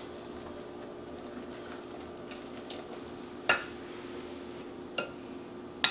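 Steady low hum with a few light clicks, and a sharper clink about three and a half seconds in as a metal whisk is set against a glass mixing bowl.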